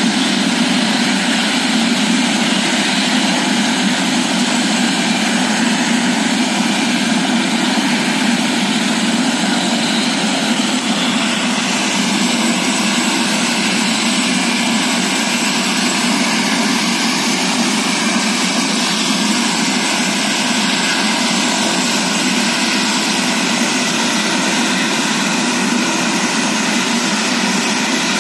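Helicopter turbine engine running steadily, a loud even rush of noise with no change in level.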